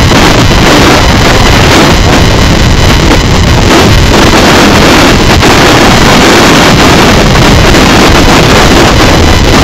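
Loud, steady wind buffeting the microphone of an onboard camera on a racing sailboat under way, over the rush of water along the hull.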